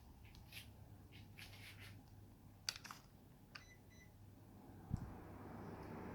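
Faint clicks, then short electronic beeps from a Panasonic mini split air conditioner, a low thump, and a steady rush of air from its indoor fan that rises and keeps going near the end.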